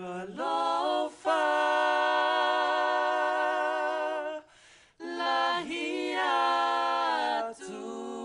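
Unaccompanied singing in Niuean, with long held notes and vibrato, in three phrases separated by short breaths.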